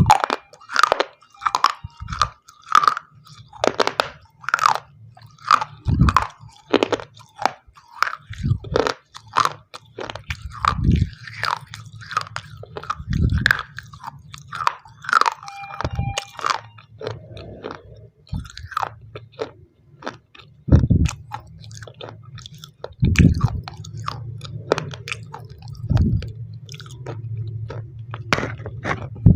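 Close-miked biting and crunching of pieces of white shell stone, with chewing between bites. The crunches come thick and fast for the first half, then thin out to occasional bites over a low steady hum.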